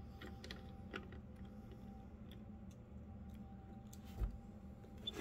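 Small plastic clicks and taps of LEGO minifigures and bricks being handled and pulled off a model, over a faint steady hum. There is a soft low thump about four seconds in.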